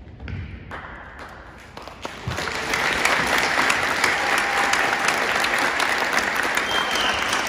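A couple of low thuds, then a large audience breaks into applause a little over two seconds in, loud and sustained.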